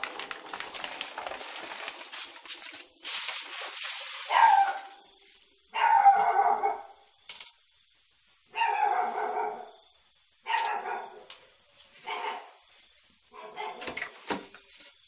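A dog barking repeatedly, a bark every second or two, the loudest about six seconds in, over steady chirping crickets. Rustling and scraping fill the first few seconds.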